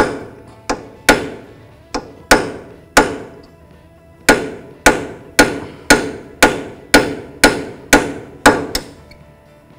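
Hammer striking a steel punch to drive a stuck lower ball joint pinch bolt out of a steering knuckle: about sixteen sharp metallic blows, each with a short ring. The blows come irregularly at first, then settle into a steady run of about two a second and stop near the end.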